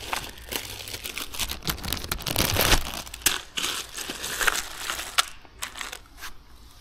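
Plastic zip bag crinkling and rustling as hands rummage in it and tip out small plastic fasteners, with many light clicks. Busiest about two to three seconds in, dying down near the end.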